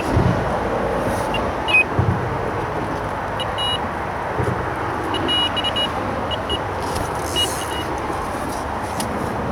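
Steady road traffic noise from a busy bridge, with a few low thuds. Through it come short runs of high electronic beeps from carp bite alarms, set off by drifting debris pulling on the lines.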